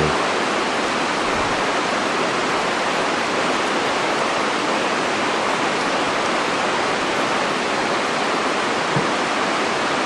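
Steady rush of fast-flowing river water at Shirahige Falls, an even hiss with no change in level.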